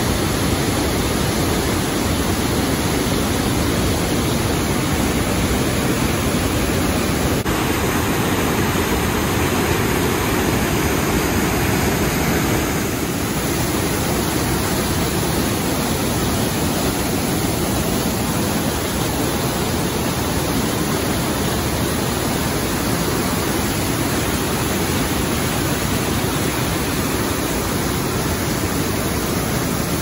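The Rhine Falls, a large river waterfall, rushing loudly and steadily, a dense even roar of falling water.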